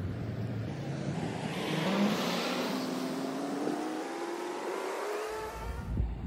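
A motor vehicle accelerating along the street, its engine pitch climbing steadily for about four seconds, loudest as it passes about two seconds in.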